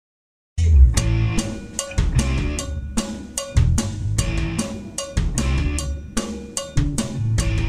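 Acoustic drum kit played, starting suddenly about half a second in: a steady groove of bass drum, snare and cymbal hits, the bass drum strongest.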